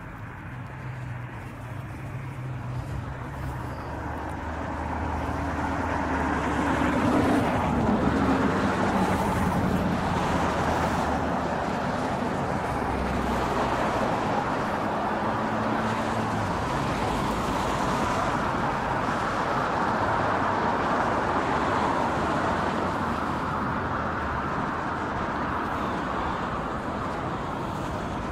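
Road traffic: a motor vehicle running close by with a low engine hum, under a wide hiss of traffic that grows louder over the first several seconds and then holds steady.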